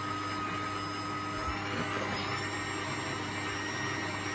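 Electric stand mixer's motor running steadily as its whisk beats a soap mixture in the glass bowl. About two seconds in, the speed is turned up and the motor whine rises in pitch.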